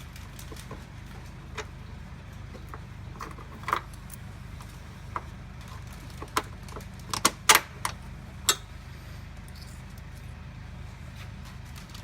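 Scattered metallic clicks and clinks of nuts, bolts and washers being fitted by hand to the steel mounting bracket of a van's rear corner bar, with a quick run of louder clicks about seven to eight and a half seconds in. A steady low hum runs underneath.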